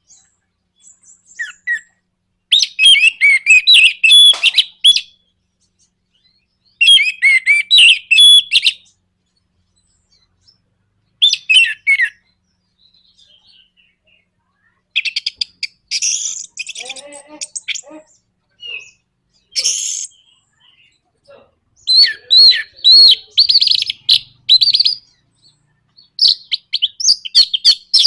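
Orange-headed thrush singing its fast 'nraktak' rattling song: about seven loud bursts of rapid, jumbled high notes with short pauses between them, and a quick clicking rattle about fifteen seconds in.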